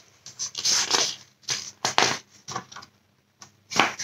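Paper pages of a picture book being flipped and handled, a run of short rustling swishes with a brief pause before one last swish near the end.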